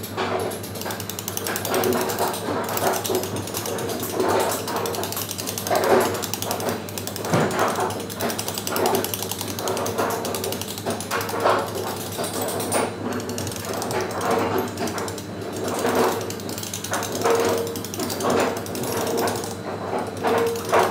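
Mallet driving a steel hand chisel into stone: a run of sharp, irregular taps as the carver chips away at the work.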